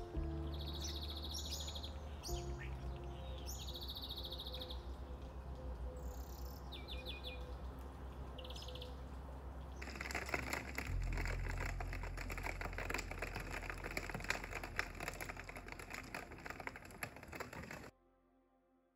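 Birds chirping and trilling over soft background music with low held notes. About ten seconds in, this gives way to steady rain pattering, which cuts off to near silence just before the end.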